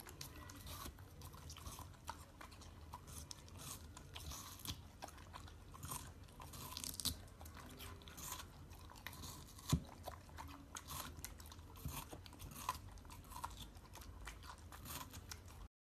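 Dog biting and chewing a slice of fresh watermelon: irregular wet crunches of the juicy flesh, with one loud crunch about ten seconds in. It stops abruptly near the end.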